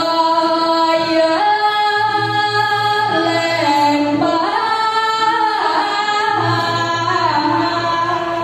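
A woman sings Balinese pupuh Ginanti in long held notes that slide and bend between pitches. A low pulsing sound runs beneath the melody in stretches.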